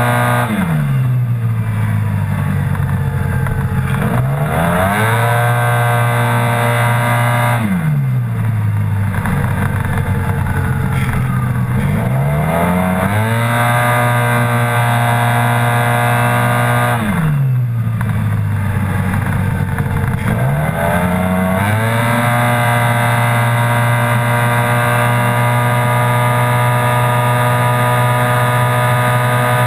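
Yamaha TMAX maxi-scooter's parallel-twin engine at track speed: the engine note holds at one steady pitch under throttle, drops steeply five times as the throttle closes, and climbs back each time. A steady rush of wind runs under it.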